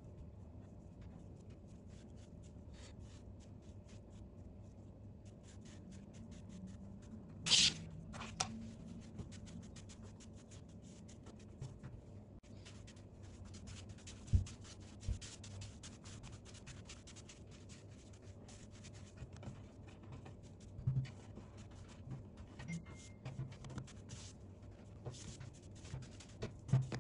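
Hands rolling and stretching ropes of dough on a wooden tabletop: faint rubbing and patting, with a few light knocks and one sharper tap about seven seconds in.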